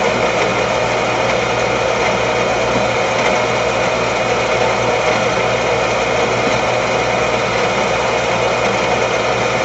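Tsugami BS32C Mark II CNC Swiss lathe running with its live backworking tools, driven off the sub-spindle, spinning at about 1000 rpm: a steady machine hum with several held tones.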